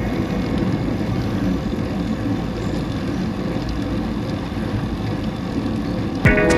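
Steady rush of wind and road noise on a bicycle-mounted camera's microphone while riding, strongest in the low end.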